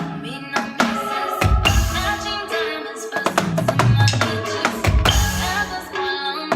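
Music with a drum-kit beat, bass drum and snare under a pitched melody.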